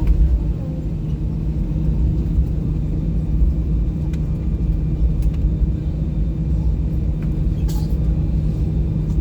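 Airbus A320 cabin noise after landing: a steady low rumble with a constant engine hum, as heard inside the cabin while the aircraft taxis. A few faint clicks sound over it.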